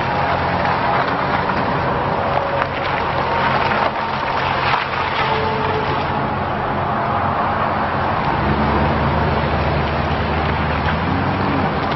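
2003 Ford F-250 pickup's 5.4-litre gasoline V8 running as the truck drives slowly up close and turns, with a few short crackles from the tyres on the loose gravel. About eight seconds in, the engine note grows louder as the truck pulls away.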